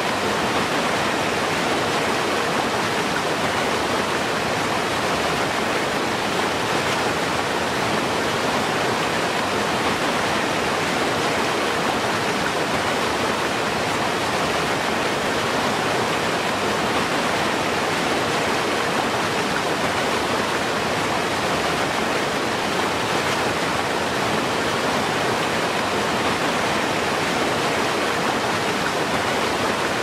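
Waterfall rushing steadily: an even, unbroken wash of falling water that stays at one level throughout.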